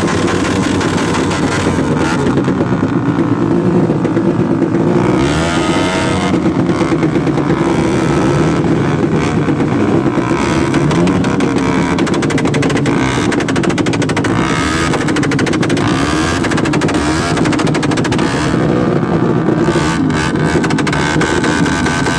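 A motor vehicle engine running loud and steady, its pitch wavering up and down a little, with a rapid pulsing running through it.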